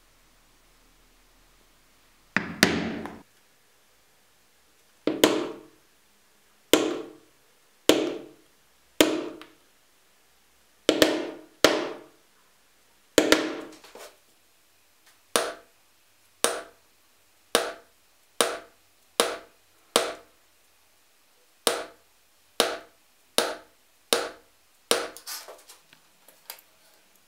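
Poly mallet striking a 1 mm leather hole punch through a paper pattern into the leather, about twenty sharp knocks, each with a short ring, spaced about a second apart and quickening a little, with a few lighter quick taps near the end.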